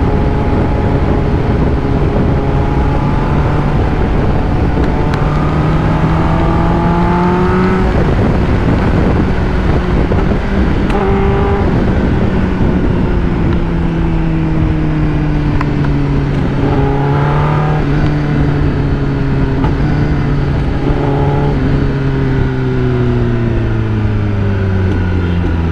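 Sport motorcycle engine running at highway speed, its pitch rising and falling with throttle and gear changes, then sinking as the bike slows near the end. Heavy wind rush over the microphone.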